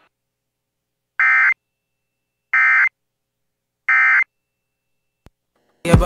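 Emergency Alert System SAME end-of-message data tones (the 'NNNN' code): three short buzzy bursts, each about a third of a second long, a little over a second apart, closing the monthly test. A faint click follows, and a loud sound cuts in just at the end.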